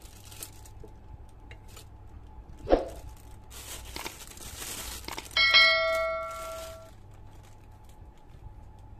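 A single sharp thump, then a crinkly rustle of a plastic bag, then a loud bell-like ding with several ringing tones that fades out over about a second and a half: a notification-bell chime from a subscribe-button animation.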